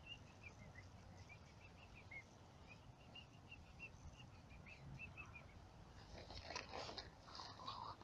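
Faint, short high chirps, a few a second, some dipping in pitch, for about the first five seconds. Then rustling in dry grass and pine needles as the puppy moves about on the ground.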